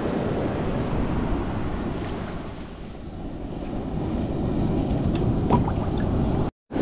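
Wind rumbling on the microphone over surf on an open beach, a steady noise that dips briefly in the middle and cuts out abruptly just before the end.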